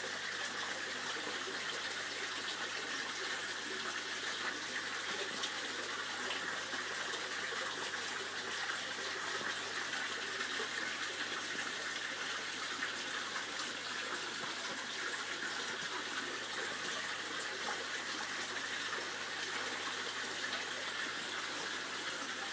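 Water pouring steadily from a pipe into a koi pond, a constant splashing rush with no break.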